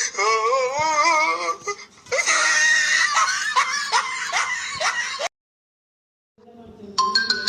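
Comedy sound-effect clips played back to back: first a wavering, high-pitched voice like an exaggerated cry or whimper, then a shrill, noisy laughing-screaming clip with repeated strokes. It cuts off abruptly, and after about a second of dead silence a short musical sting with plucked notes begins.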